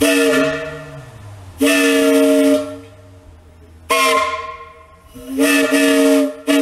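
A steam locomotive whistle blown on compressed air instead of steam, sounding a chord of several tones in five short blasts, the last one very brief near the end.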